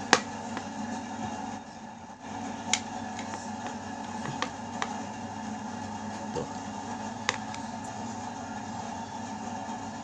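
Sharp clicks and taps of plastic hair dryer parts being handled as the cord and its strain-relief sleeve are fitted back into the handle, the loudest right at the start, then a few more spread out, over a steady background hum.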